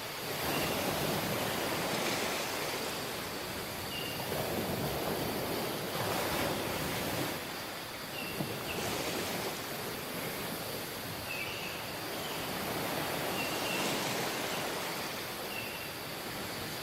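Surf washing onto a tropical beach, the waves swelling and easing every few seconds, with a short high chirp recurring every two to four seconds.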